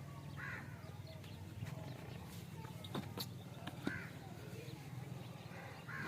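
Short bird calls, three of them spaced a few seconds apart, with a few sharp knocks in between, over a steady low hum.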